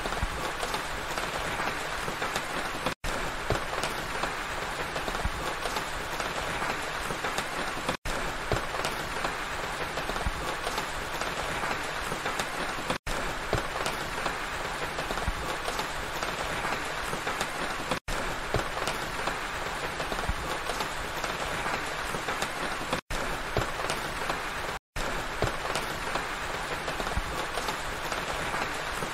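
Steady rain, a dense, even patter. The sound cuts out for an instant about every five seconds.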